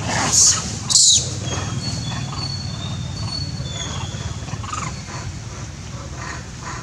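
Macaques screeching twice in quick succession, short and harsh, about half a second and a second in, over a steady low background rumble, with a few thin high whistling tones after.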